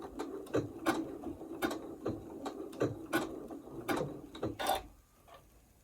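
Sewing machine stitching slowly in a blanket stitch: a steady mechanical run with a sharp click at each needle stroke, about two or three a second, stopping near the end.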